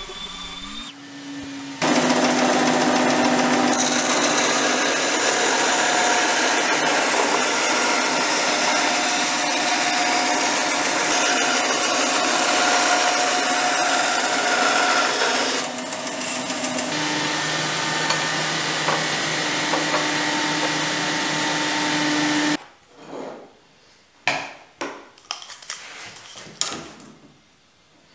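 Bandsaw cutting the live edges off a length of round wood, a loud steady saw noise for about twenty seconds that dips briefly partway through. It stops near the end, followed by a few light knocks and clicks as the wood pieces are handled.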